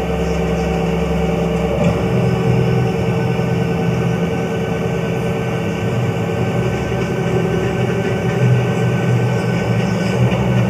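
Stepper motors of a G0704 benchtop mill converted to CNC driving the table and head along their axes during a warm-up routine, a steady whine of several tones. The tones change about two seconds in, as the move changes.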